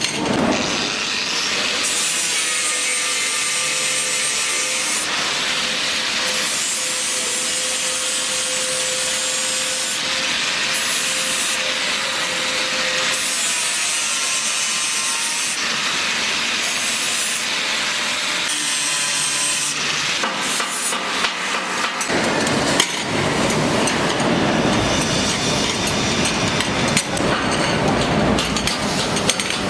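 Steady rasping of a tool working metal. A whine dips and rises in pitch every couple of seconds, and the sound turns rougher and clickier about three-quarters of the way through.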